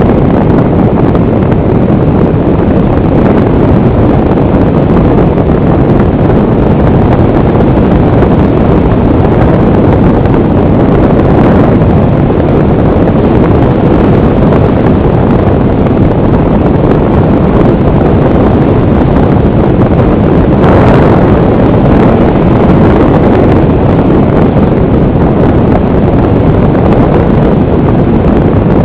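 Loud, steady rush of wind and propeller noise picked up by the onboard camera microphone of an FPV model aircraft in flight.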